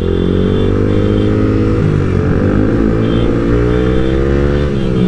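Sport motorcycle's engine running through an aftermarket Leo Vince Cobra replica exhaust with its outer dB killer removed, giving a deep, bassy note while riding. The pitch climbs a little at first, wavers in the middle and drops as the throttle eases near the end.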